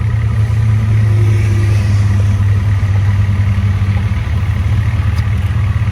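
Side-by-side off-road vehicle's engine idling close by, a steady low hum that holds the same pitch throughout.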